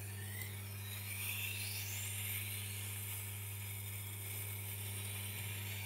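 Tormek T-8 water-cooled grinder running with a steady low motor hum while a kitchen knife is drawn along the turning grindstone to grind its bevel. There is a soft hissing rasp of steel on stone that shifts in pitch as the blade moves from heel to tip.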